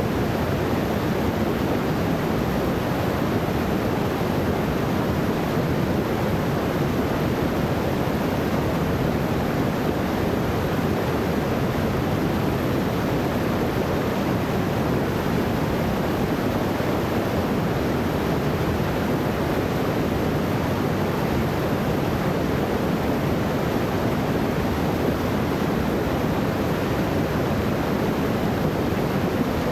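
Creek water cascading over rocks into a rock pool: a steady, even rushing with no breaks.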